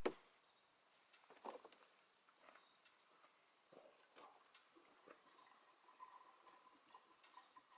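Faint steady high-pitched trill of crickets, with a few soft scattered ticks.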